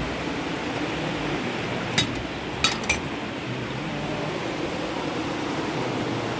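Three short, sharp clinks of hard objects knocking together, like dishes or glassware, about two to three seconds in, over a steady rushing background noise.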